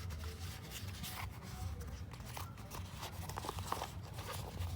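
Rustling and small clicks of a new shift boot and its plastic molding being fed down over the gear lever into the console opening, busier in the second half, over a steady low hum.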